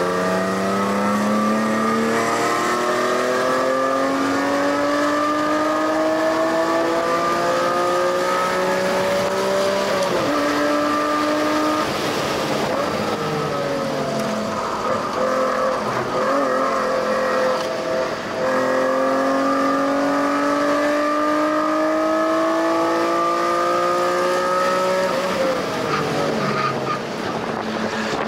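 2005 BMW M3's S54 straight-six, with aftermarket headers and a custom Magnaflow rear section, running at full track pace: the engine note climbs under full throttle for about ten seconds, drops off, wavers through a stretch of part throttle, then climbs again for several seconds before falling away near the end.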